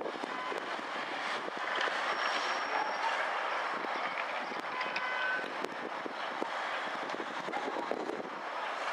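Steady outdoor city noise, mostly distant road traffic, with a few faint clicks and a couple of brief thin whistle-like tones.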